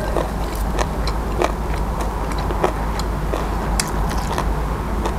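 A person eating sticky rice dipped in raw beef koi, chewing with scattered irregular mouth clicks, close to a clip-on microphone, over a steady low hum.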